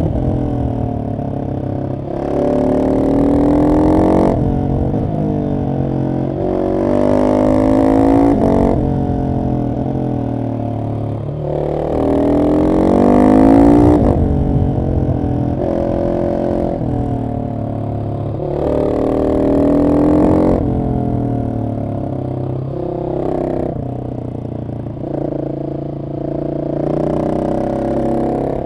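Husqvarna 701 SM's single-cylinder engine through an aftermarket Arrow exhaust with the catalyst removed, heard from the rider's seat. Its note climbs in several hard pulls of about two seconds, each followed by a drop as the rider shifts or eases off, with a lower drone between.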